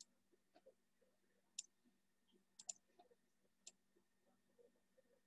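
Faint, scattered computer mouse clicks, a few over several seconds, over near silence with a faint steady hum.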